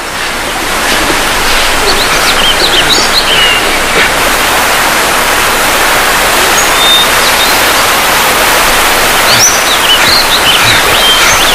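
Loud outdoor ambience: a steady rushing noise, with birds chirping in short clusters of calls a couple of seconds in and again near the end.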